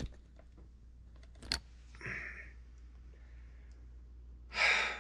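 A few small sharp clicks and light handling noises at a workbench, the clearest about a second and a half in, then a short breathy rush of noise near the end.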